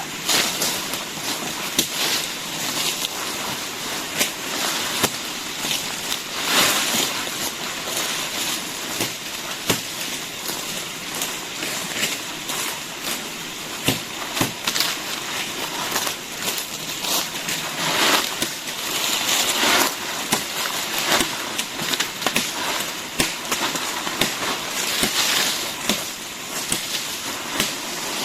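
Creek water splashing and sloshing over a steady rushing hiss, with scattered knocks and clicks and a few louder surges of splashing.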